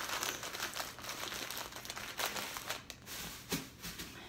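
Small plastic snack bag of cheese puffs crinkling as it is squeezed by hand to crush the puffs inside, in dense irregular crackles that thin out near the end.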